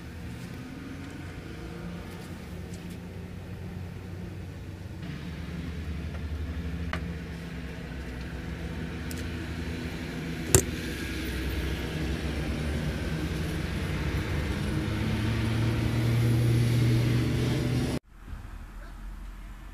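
A vehicle engine's low rumble, with slowly shifting pitch, growing louder, then cutting off suddenly near the end. A single sharp click about ten seconds in.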